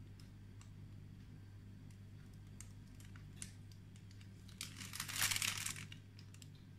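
Plastic piping bag crinkling as it is handled and squeezed, loudest for about a second near five seconds in, with a few light ticks over a faint steady low hum.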